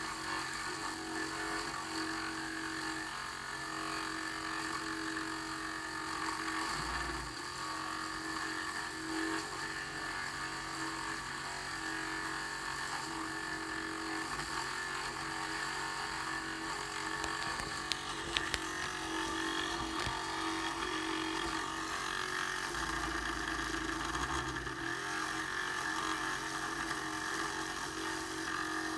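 Beelink mini PC's cooling fan running with a loud, steady whir and whine. A lower tone within it drops out and returns now and then. The owner finds the fan excessively loud. Two short clicks come about two-thirds of the way through.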